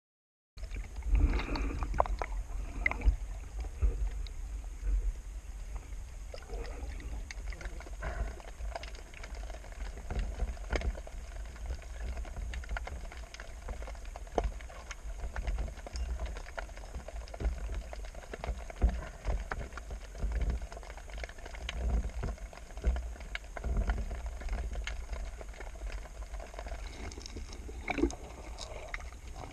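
Water sloshing and gurgling around a camera during a spearfishing dive, over a steady low rumble, with many scattered clicks and knocks.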